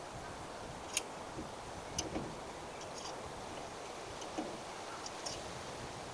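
C-clamp being screwed down against an old brake pad to press the pistons back into a front brake caliper: a few scattered light metallic clicks and taps over a faint steady hiss.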